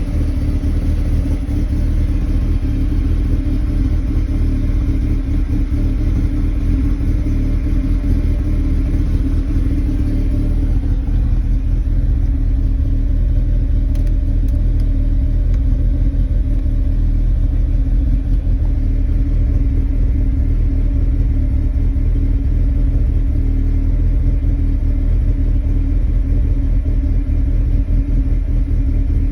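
2001 NB Mazda MX-5's inline four-cylinder engine idling roughly after a cold start: a steady low rumble. The rough idle goes with an idle droop that makes the car stall at times when coming to a stop.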